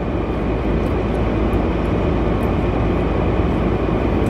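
Steady low rumble and hiss of a car's interior, with no distinct events.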